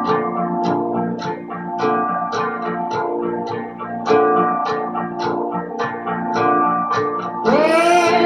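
Guitar music played back by a music player, plucked notes over a steady beat. Near the end a rising, sliding voice-like tone comes in over it.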